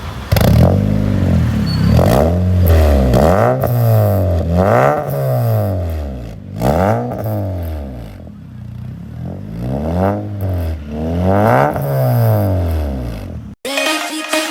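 Honda Civic with a straight exhaust revving up and down over and over, its loud engine and exhaust note rising and falling in pitch about eight times. It cuts off suddenly near the end, and electronic music begins.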